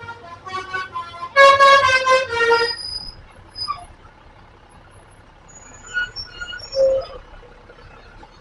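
An Indonesian bus's 'telolet' musical horn playing a multi-note tune, stepping from note to note. It is loudest a second and a half to two and a half seconds in and stops about three seconds in.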